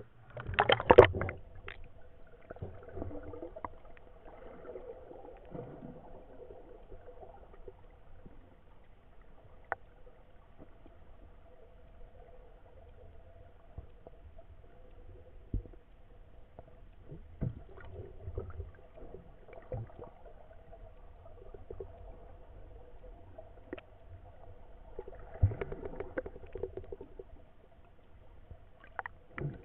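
Water splashing loudly about a second in as the spearfisher ducks under, then the muffled underwater sound of a river heard through a submerged camera: low rumbling water noise with a faint steady hum and occasional small clicks and knocks.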